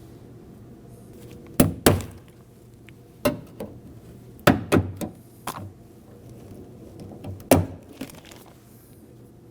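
Small flathead screwdrivers clicking and tapping against the clip of an electrical connector inside a car door while it is being pried loose: about eight short, sharp clicks at irregular intervals, some in quick pairs.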